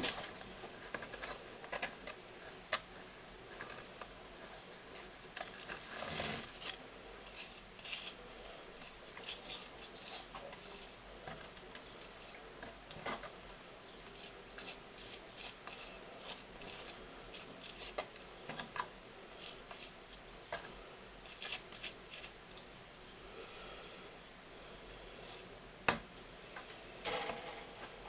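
Spatula scraping and scooping thick wet ceramic slurry from a plastic tub and daubing it onto a crucible: scattered light scrapes, taps and clicks, with a few louder scrapes.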